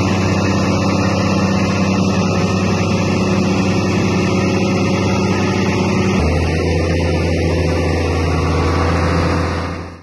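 Tractor's diesel engine running steadily while towing a stuck car out of floodwater, its note changing about six seconds in. The sound fades out near the end.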